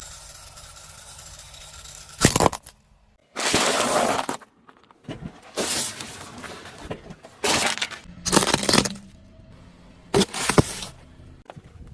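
Objects cracking and breaking as a car tyre rolls over them: a series of loud crunching bursts, about six, with abrupt cuts and short quiet gaps between them.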